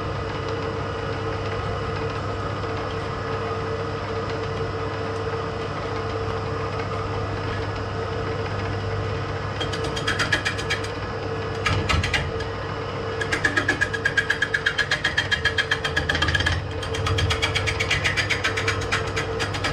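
1970s Coronet woodworking lathe running at its reduced belt speed with a steady motor hum. About ten seconds in, a turning tool starts roughing down the spinning ash log, chattering against its uneven surface in rhythmic bursts, about five a second.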